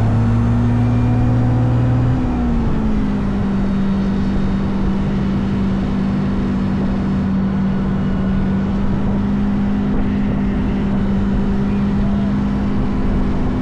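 An engine running steadily, its pitch dropping a little about two to three seconds in and then holding.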